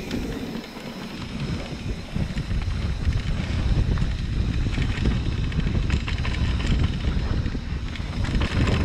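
Wind buffeting the microphone over the rumble of mountain bike tyres rolling fast down a dirt singletrack, with occasional clicks and rattles from the bike. It grows louder about two seconds in.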